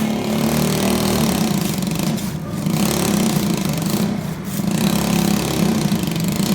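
A motor or engine running steadily, easing off briefly twice, about two and a half and four seconds in.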